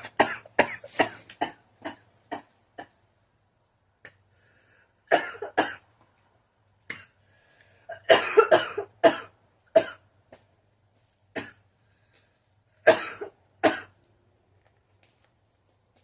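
A woman coughing in repeated fits after smoking cannabis: a fast run of coughs at the start, then further bursts of a few coughs every few seconds, with quiet gaps between.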